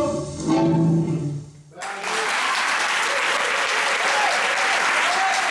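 Tango music plays its last held notes and stops about a second and a half in, and the audience at once breaks into steady applause.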